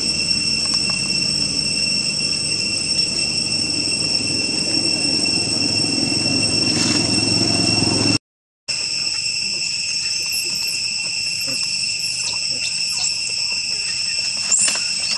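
Steady, high-pitched insect drone, with a low rumble underneath in the first half. The sound drops out completely for about half a second around the middle, and faint high squeaks come in after it.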